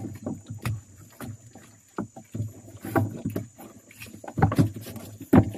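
Irregular hollow knocks and thumps on the floor of a small boat as caught giant river prawns are gathered up and handled, the loudest pair near the end.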